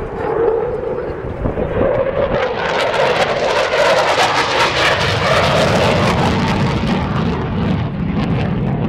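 Fighter jet flying past, its engine roar swelling from about two seconds in, loudest in the middle, then easing off.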